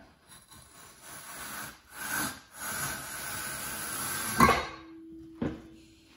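Amcraft red V-groove duct board tool pushed along a layout square, its blades cutting a groove through fiberglass duct board: a steady scraping hiss for about four seconds that ends in a sharp knock, then a lighter tap about a second later.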